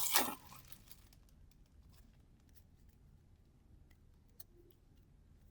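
Brief crinkle of a trading-card booster pack being handled at the start, then faint rustles and small clicks of cards being handled, with one sharper click about four and a half seconds in.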